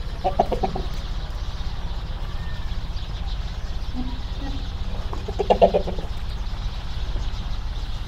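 Two short, pulsing farm-animal calls, one about half a second in and another around five and a half seconds in, over a steady low rumble.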